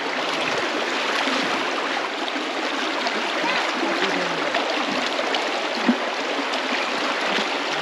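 Shallow stream running fast over rocks and around stone stepping stones: a steady rushing, babbling water sound.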